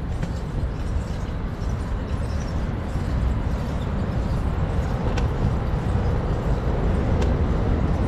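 Steady low rumble of city street traffic heard from a moving bicycle, with two faint clicks about five and seven seconds in.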